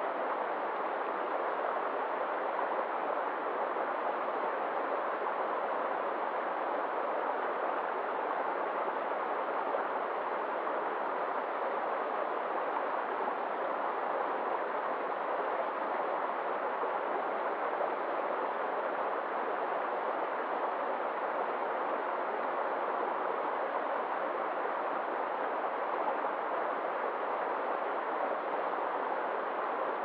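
A small waterfall and rocky mountain stream rushing steadily over stones, an unbroken even wash of water noise.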